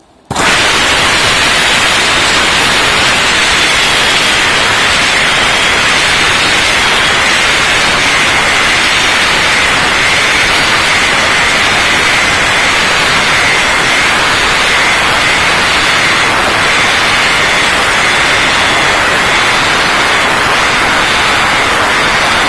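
Robot-mounted disc sander running on a car body panel: a steady, loud hiss with a faint high whine, starting abruptly just after the start.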